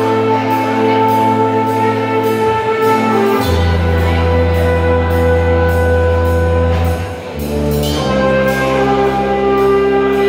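Live brass band of trumpets, trombone and tuba playing long held chords over a deep bass, with a steady beat about two a second. The chord changes about three and a half seconds in and again about eight seconds in.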